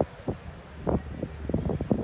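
Wind buffeting the microphone in uneven gusts, with a low rumble.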